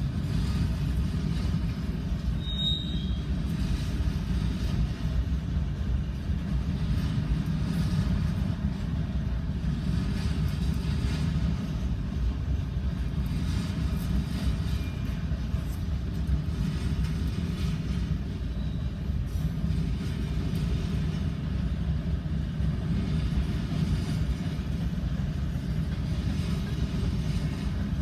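Canadian National freight train M347 rolling past, with a steady low rumble of wheels on the rails. A brief high squeak comes about two and a half seconds in.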